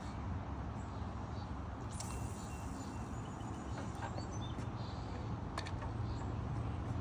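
Outdoor ambience: faint, short bird chirps over a steady low rumble, with a couple of soft clicks.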